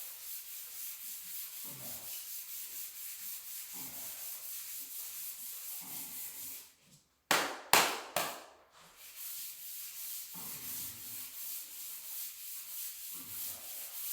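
Sanding block rubbed back and forth over a dried drywall-compound patch, an even rasping scrape in quick repeated strokes. It breaks off briefly a little past halfway, comes back with two louder strokes, then carries on steadily.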